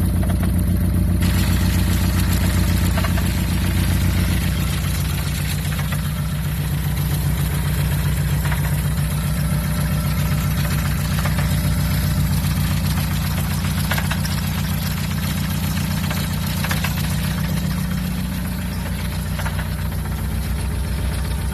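Ford Focus ST's turbocharged four-cylinder engine idling steadily, its note shifting slightly about four seconds in, with a few light ticks. This is an engine whose cylinder 1 is down to 100 psi compression from a ring land damaged by an overboost spike.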